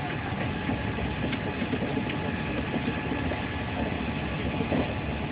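Steady running noise of a moving D-series high-speed train, heard from inside the passenger carriage.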